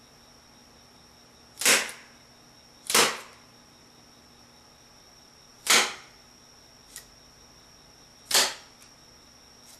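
Wooden semi-automatic rubber band hand gun's trigger and needle-hook mechanism snapping: four sharp wooden snaps, the first two about a second apart and the rest a few seconds apart, with a small faint click between the last two.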